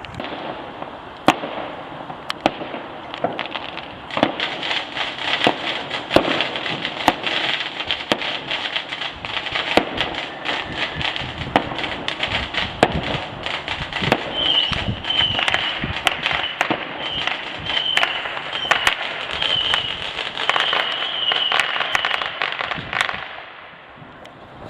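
Fireworks going off in a dense barrage of sharp bangs and crackling, with short high whistling notes in the second half; it dies away near the end.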